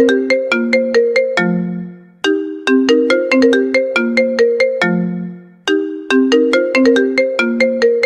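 An iPhone ringtone melody performed a cappella by voices. A quick run of notes stepping up and down ends on a held low note, and the phrase repeats about every three and a half seconds.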